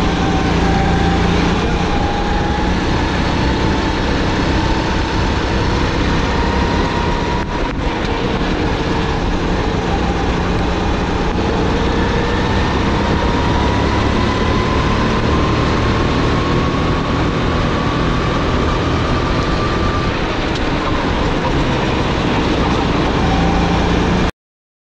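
Engine of a SODI GT5R rental kart, a 270cc single-cylinder four-stroke, running hard at racing speed as heard from on board. Its pitch dips briefly about a third of the way in, climbs steadily along a straight, then falls as the kart slows for a corner. The sound cuts off suddenly just before the end.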